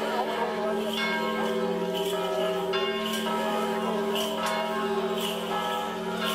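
Church bells ringing for an Orthodox procession: several bells struck at an uneven pace, a little more than one strike a second, their tones overlapping and hanging on.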